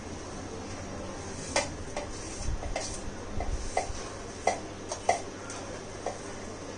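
Cumin and coriander seeds being swept off a ceramic plate into a stainless steel mixer-grinder jar: a scatter of light clicks and taps, most of them between about one and a half and five seconds in.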